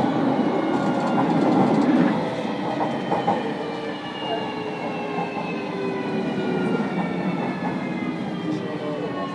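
Running noise inside a JR Kyushu 305 series electric train's motor car: rail and wheel noise under the traction motors' whine, whose tones slide slowly down in pitch as the train slows.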